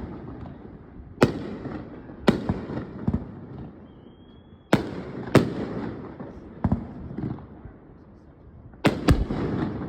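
Aerial fireworks shells bursting overhead: about seven sharp bangs spaced a second or two apart, two of them in quick succession near the end. Each bang is followed by a rolling echo that dies away.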